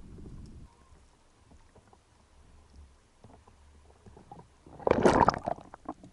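Underwater sound: a low rumble stops just under a second in, leaving faint scattered clicks. About five seconds in comes a loud burst of dense crackling clicks lasting under a second.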